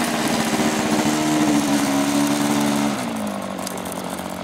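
O.S. .46 two-stroke glow engine on a model airplane running steadily at fairly high throttle, then throttled back to a lower, quieter idle about three seconds in.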